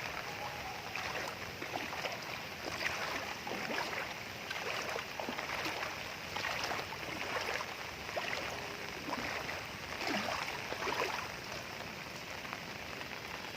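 Knee-deep floodwater splashing and sloshing in irregular strokes over a steady hiss.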